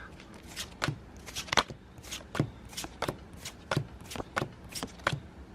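Pokémon trading cards from a freshly opened booster pack being flipped through one at a time: a short, sharp card slide about twice a second.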